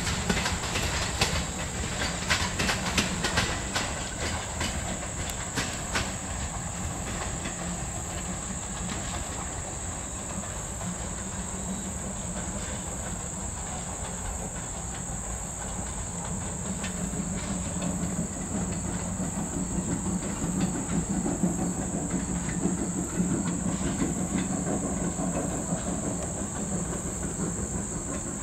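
Steam excursion train rolling away on the rails, its wheels clicking over the rail joints for the first few seconds, then a steady low rumble that swells again later as it recedes. A steady high insect drone runs underneath.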